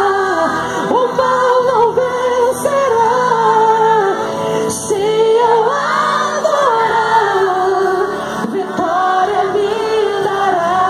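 Congregation singing a gospel worship song together, women's voices loudest, in long notes that slide up and down.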